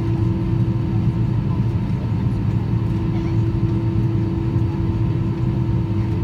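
Airbus A320 cabin noise with the jet engines at idle on the ground: a steady hum with a few constant tones over an even rush of air.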